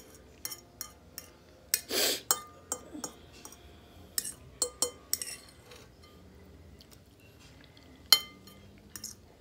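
Irregular clinks and taps against a dish while eating by hand, several ringing briefly. There is a short noisy burst about two seconds in, and the sharpest clink comes near the end.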